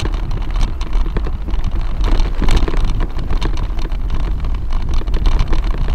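Wind rumbling on the microphone over a constant clatter of small knocks and rattles, as a bicycle is ridden over a rough, potholed trail.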